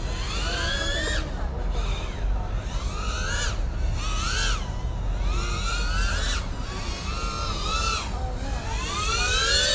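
FPV quadcopter's brushless motors whining as the throttle is worked, in about seven swells that each rise in pitch and then drop, over a steady low rumble.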